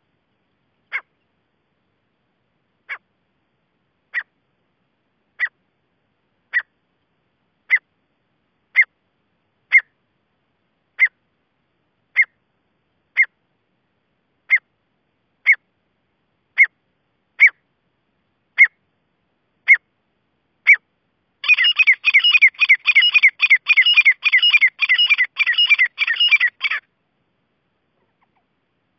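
Grey francolin calling: about eighteen single sharp notes roughly a second apart, then a fast run of rapidly repeated notes for about five seconds that stops abruptly.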